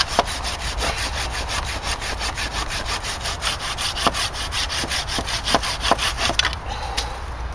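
Fiskars pruning saw cutting through a bark-covered wooden pole in quick, even back-and-forth strokes. The rasp of the teeth fades out shortly before the end.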